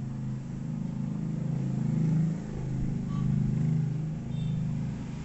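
A motor vehicle engine running at low revs, a steady low hum that swells and eases in loudness.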